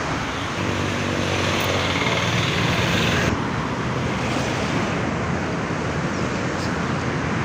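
A motor vehicle engine passes during the first three seconds, over a steady rushing roar that continues throughout.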